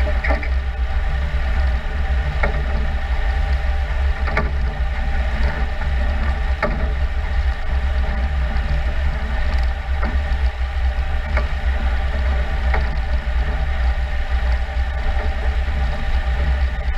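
Jarcrac Dual rubber-tracked forwarder driving along: its engine runs with a steady drone and a deep low hum, the tracks turning under it, with occasional short knocks.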